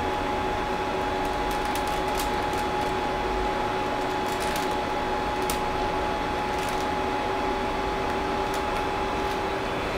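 Creality CR-10S Pro 3D printer's cooling fans running: a steady whirring hiss with a hum at two pitches, and a few faint clicks.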